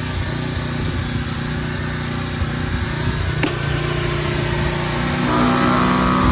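Gas-engine Craftsman 2700 PSI pressure washer running steadily under load, with the hiss of water spraying through a Harbor Freight surface cleaner onto concrete. A single sharp click comes about three and a half seconds in, and a higher steady whine joins about five seconds in.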